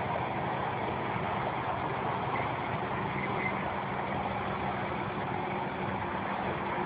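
Steady rushing noise of a flash-flood front of muddy water pouring across a dry sandy riverbed.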